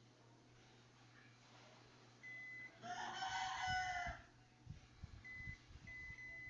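A multimeter's continuity beep, a steady high tone, sounds briefly as the probe finds the connected pin. It is followed by a rooster crowing once, the loudest sound, then two more beeps, the second longer. Faint knocks of the probes being handled come near the end.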